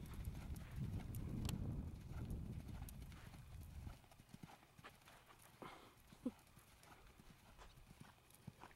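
Hoofbeats of a palomino horse cantering on sand arena footing, in a steady repeated beat. It is louder in the first few seconds, with one brief louder sound about six seconds in.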